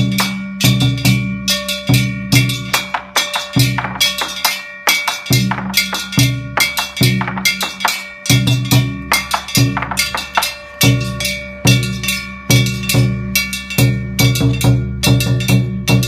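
Japanese festival music (matsuri bayashi): drums struck in a steady, quick beat of about three strikes a second, with steady metallic ringing tones over them.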